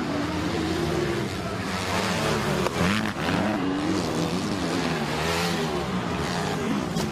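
Motocross bike engines racing on a dirt track, their pitch rising and falling as the riders open and close the throttle and shift.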